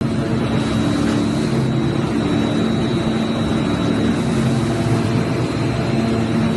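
Plastic film recycling machine running with a steady, even drone and hum, with no change in load.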